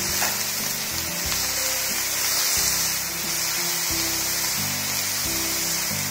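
Shredded oyster mushrooms sizzling steadily in hot oil as they are stir-fried in a nonstick pan, under background music with slow, changing notes.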